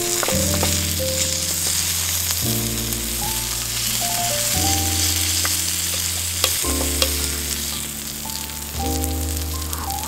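Thick-cut wagyu steak sizzling on a hot iron plate, a steady hiss of frying, with two sharp clicks of a metal utensil against the plate about two-thirds of the way through. Background music with slow, changing chords plays underneath.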